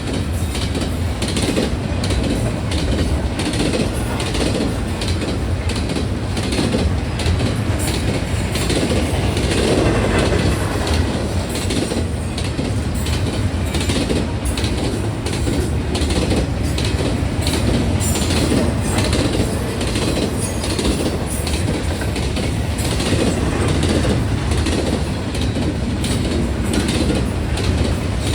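Intermodal stack freight train rolling past at speed: a steady rumble of wheels on rail, with rapid clacking as the wheels run over rail joints and the crossing.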